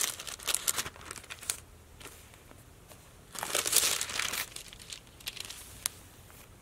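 Thin Bible pages rustling as they are leafed through, in short crinkly bursts, with a longer rustle about three and a half seconds in and a couple of light ticks near the end.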